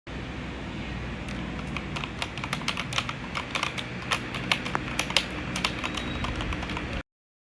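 Typing on a Meta K108 mechanical keyboard: quick, irregular key clicks starting about a second in, over a low steady background hum. The sound cuts off suddenly near the end.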